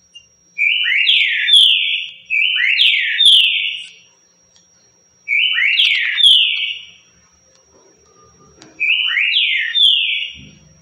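Green-winged saltator (trinca-ferro) singing the 'currucutil' song: four loud whistled phrases of about a second and a half each, every phrase a short note followed by clear notes sweeping downward.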